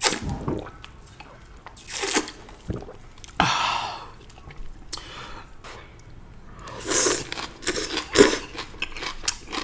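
Close-miked eating: crunching and chewing of stir-fried morning glory (water spinach), in irregular bursts, loudest about three seconds in and again around seven to eight seconds.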